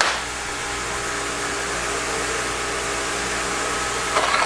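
A steady rushing, machine-like noise with a constant hum under it, with a sharp click at the start and a few light knocks near the end.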